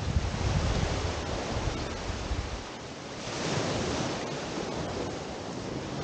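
Small waves washing up a sandy beach, with wind buffeting the microphone in the first half; a wave's hiss swells about three seconds in.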